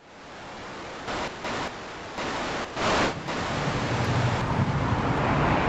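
Static-like hiss that fades in, with a few short louder bursts of noise, then gives way to wind buffeting the microphone over the rumble of street traffic.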